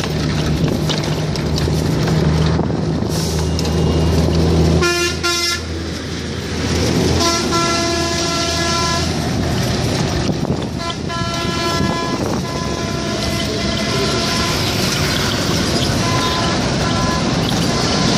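Road traffic with vehicle horns honking: a short honk about five seconds in, then two longer held honks a few seconds apart, and fainter tooting after. A heavy vehicle engine runs close by with a low steady hum until the first honk.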